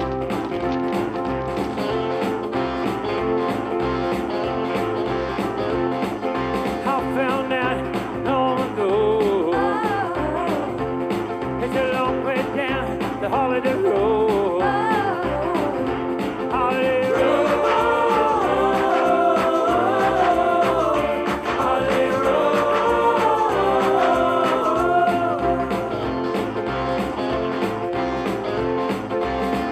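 Background music: a song with a steady beat and a sung melody that comes in about a quarter of the way through and is strongest in the middle.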